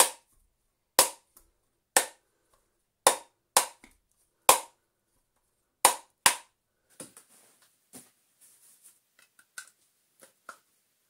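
Hammer striking a seized, corroded Miele vacuum cleaner motor eight times in sharp blows about a second apart, to knock it apart; the motor is thought to have sucked up water. Near the end come lighter clicks and scraping.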